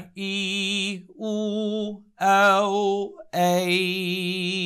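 A man's voice holding long sung vowel tones with vibrato, four in a row of about a second each with short breaks between them, at much the same low pitch.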